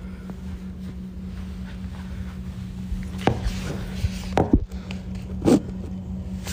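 Smartphone being handled and turned around, its microphone picking up rubbing and a few knocks about three, four and a half, and five and a half seconds in, over a steady low hum.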